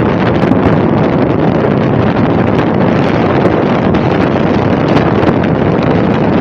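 Loud, steady wind noise buffeting the microphone, a dense rumbling hiss with no let-up.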